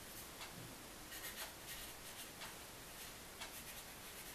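Pencil writing on a small paper pad: faint, irregular scratching strokes.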